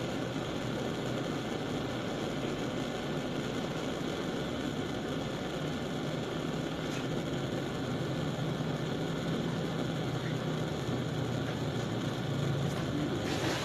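Small butane blowtorch on a gas cartridge burning with a steady, unbroken hiss of the flame.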